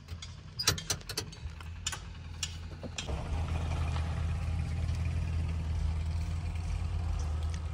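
Truck engine idling with a steady low hum that grows louder about three seconds in, after a few sharp clicks and knocks.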